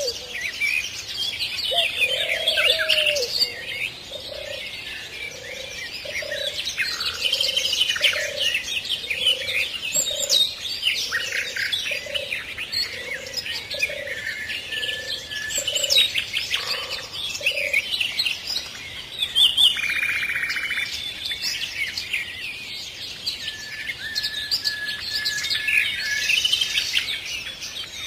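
Several birds singing and chirping together in a dawn-chorus-like mix of high trills and tweets. From about four seconds in until just past halfway, one bird repeats a low, soft note about every two-thirds of a second.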